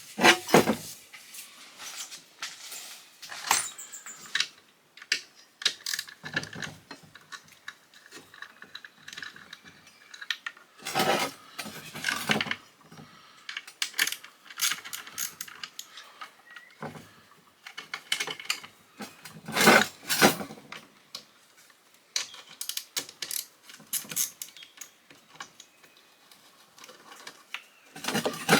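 Hand tools working on a Badger half-horsepower garbage disposal as it is taken apart: irregular sharp metallic clicks, knocks and rattles, with a few louder clatters.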